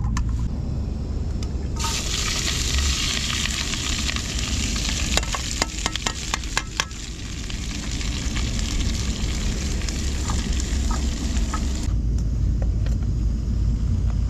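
Green peppers stir-frying in hot oil in a pan, sizzling loudly from about two seconds in until it dies down near the end, with a quick run of clicks in the middle as they are stirred. A steady low rumble runs underneath.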